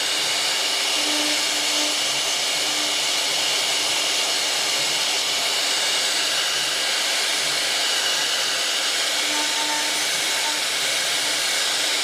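CNC router running steadily with a constant high-pitched hiss, unchanging throughout.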